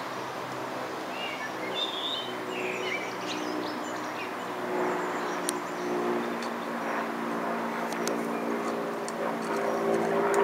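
A steady, multi-toned drone of a distant motor, with small birds chirping briefly about a second in. Light, sharp clicks come through in the second half.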